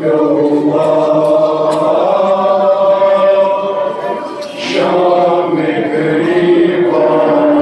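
Voices chanting a noha, a Muharram lament, in long held notes, with a short break about four and a half seconds in.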